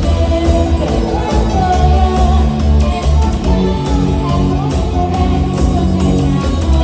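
Live band playing a song: drum kit, bass and electric guitar, with a melody line over a heavy bass.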